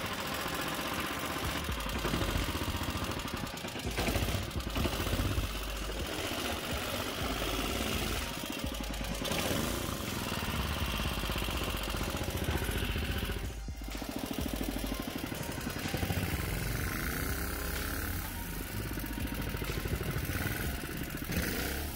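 Modified Honda GX200 single-cylinder four-stroke engine, about 11 hp, running hard on a Mud-Skipper longtail mud motor driving an aluminum jon boat. The engine note swings up and down several times near the end.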